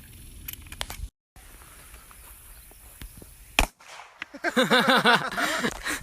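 A single handgun shot a little past halfway, sharp and short, with a few faint clicks before it; a voice starts near the end.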